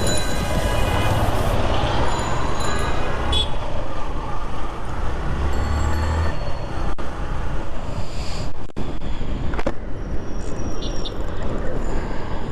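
Road traffic noise: vehicle engines and tyres running steadily, with a horn sounding during the first second or so.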